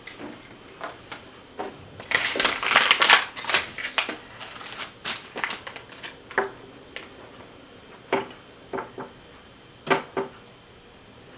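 Hands handling small plastic items, crinkling and rustling for a couple of seconds, then scattered light clicks and taps.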